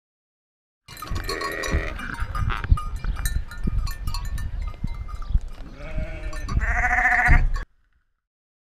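A sheep bleating close to the microphone: a short bleat about a second in and a longer, quavering one near the end. Knocks and scuffs come in between as its nose bumps the camera. The sound cuts off suddenly.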